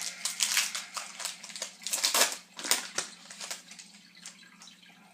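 A trading card pack's wrapper being torn open and crinkled by hand: a run of sharp crackles, busiest in the first three seconds, then thinning out.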